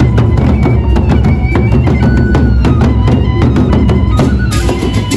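Gendang beleq ensemble playing: several large barrel drums beaten with sticks in a dense, steady rhythm, with short ringing notes over the drumming.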